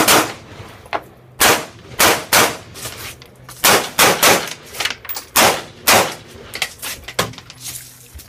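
AR-style carbine firing about ten shots, a few in quick strings under half a second apart and the rest a second or more apart, with smaller pops near the end.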